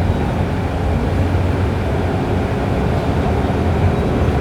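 TTC subway train running between stations, heard from inside the car: a steady low rumble.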